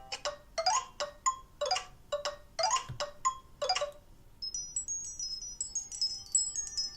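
Ringtone previews playing from a Nokia Lumia 1520's speaker. First comes a melody of struck, chime-like notes. About four and a half seconds in, a high, tinkling run of quick wind-chime-like notes starts.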